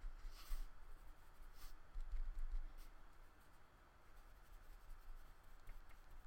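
Paintbrush brushing watercolour onto paper with a few soft strokes and light handling bumps, faint.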